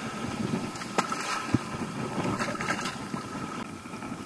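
Ocean surf washing on a beach with wind on the microphone, a steady noise, and a couple of sharp clicks about a second in.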